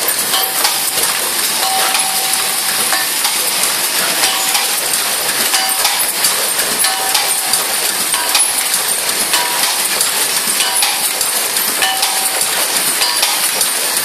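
LTPT-40A effervescent-tablet tube filling machine running: a dense, steady clatter of tablets and metal parts clinking over a hiss, with a short tone recurring every second or so.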